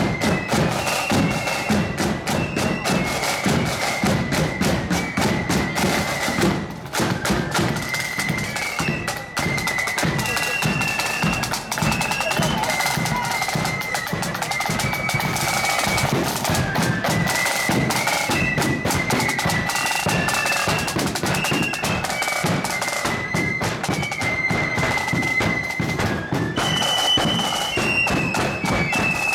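Marching flute band playing a tune: a line of flutes carrying a stepping melody over side drums and a bass drum beating time.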